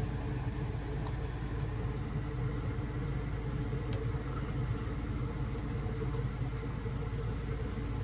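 Steady low mechanical hum with a few constant tones, unchanging throughout.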